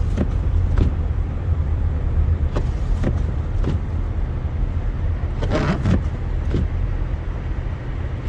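Car driving on a snowy highway, heard from inside the cabin: a steady low road rumble with short knocks at irregular intervals and a brief louder swish about two-thirds of the way through.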